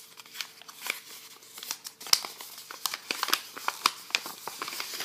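Paper crinkling and rustling as a folded instruction sheet is unfolded by hand, a run of small sharp crackles that grows busier about two seconds in.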